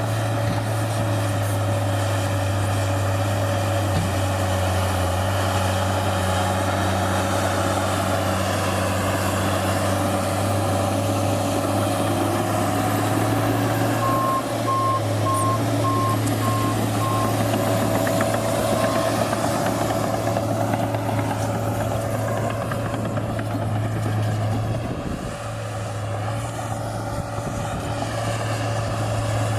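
New Holland D180C crawler dozer's diesel engine running steadily under load, heard from inside the cab. Midway a backup alarm beeps about six times over some three seconds, and near the end the engine note briefly drops.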